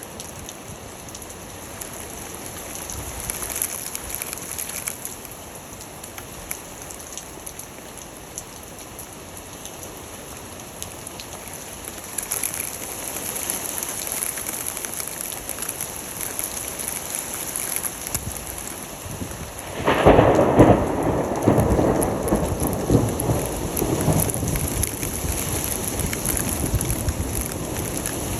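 Steady rain falling, then about two-thirds of the way through a sudden loud clap of thunder that rumbles on and slowly fades.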